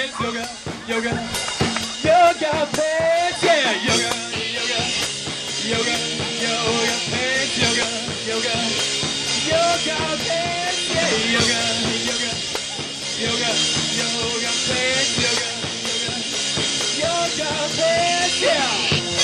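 Live rock trio playing an instrumental passage: an electric guitar lead line with sliding, bent notes over bass guitar and a drum kit.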